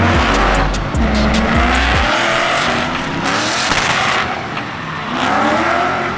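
Drift car engine revving up and down with tyres squealing and skidding in long slides.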